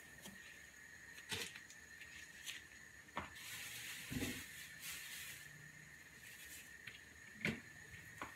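Quiet kitchen: a few faint scattered knocks and clicks, over a faint steady high-pitched whine.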